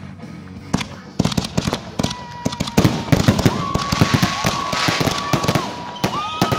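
Consumer aerial fireworks bursting: a few bangs about a second in, then a rapid run of sharp reports and crackle. Several long, steady, high whistling tones sound over the bangs from about two seconds in.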